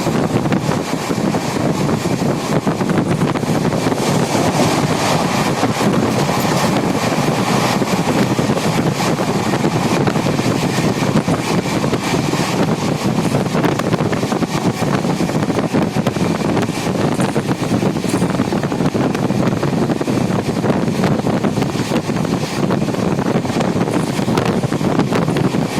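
Passenger train running at speed, with wind blowing across the microphone: a steady rushing noise dotted with small clicks and rattles.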